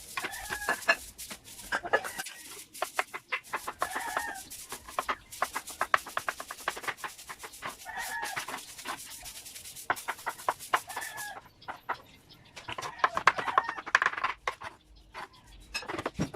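Chickens clucking, with short calls every few seconds, among many sharp knocks and clicks that come in quick runs.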